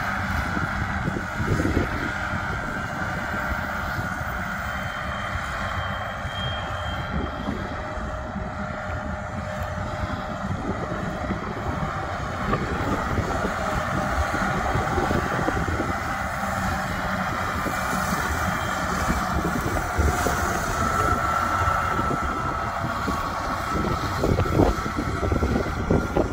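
Tractor engine running steadily as it drives a mower through standing grass, heard across the field, with wind rumbling on the microphone.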